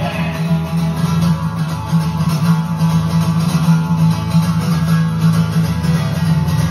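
Acoustic guitar strummed in a steady rhythm through an instrumental passage, with no singing.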